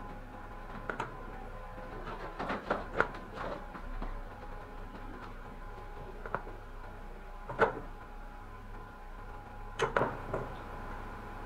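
Raw potato wedges being set into an unglazed clay tagine base: scattered light knocks and clicks, a few at a time, the sharpest just before the middle and a cluster near the end, over a faint steady hum.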